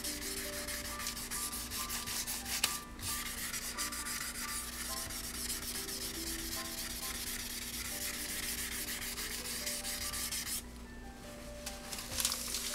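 Hand sanding of the cured clear coat on a Yamaha RZ350 fuel tank with fine 1000-grit sandpaper held in the fingertips, blending the edge of a paint repair: a steady fine rubbing scratch of many small strokes. It stops about ten seconds in and starts again briefly near the end.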